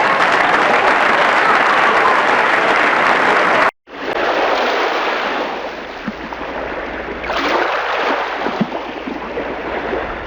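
A dense hiss that cuts off abruptly a little under four seconds in. It gives way to a beach ambience of ocean waves, with a wave surging in and washing back about halfway through.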